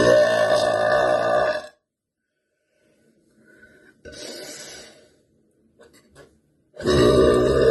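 A woman burping loudly: one long burp lasting about a second and a half, a softer noise about four seconds in, then a second long, loud burp starting near the end.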